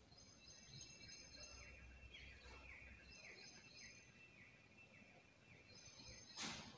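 Near silence: quiet room tone with faint high chirps and a thin steady whistle in the background, and a brief burst of noise near the end.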